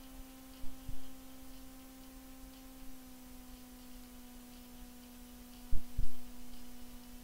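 A steady low hum, with two pairs of short, low thumps: one pair about a second in, the other about five seconds later.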